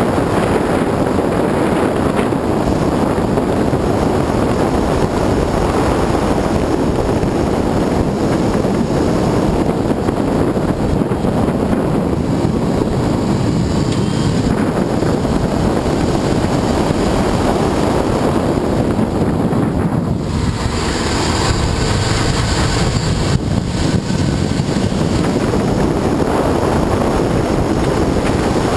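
Subaru Forester 2.5XT's turbocharged flat-four engine pulling at speed under heavy wind rushing over the bonnet-mounted camera. The sound dips briefly about two-thirds of the way through, then builds again.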